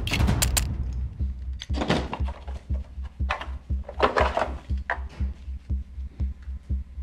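The last shots of a burst of gunfire end in the first half second. Then a low bass pulse beats steadily, several times a second, like a soundtrack heartbeat, with a few short sharp noises in between.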